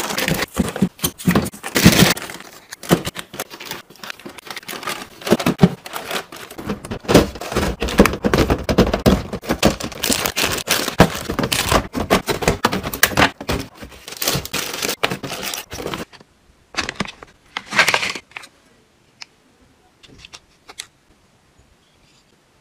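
Packaging crinkling and tearing, with clicks and knocks as groceries are unpacked and put away into a fridge. The handling is busy for about sixteen seconds, then thins to a few scattered taps.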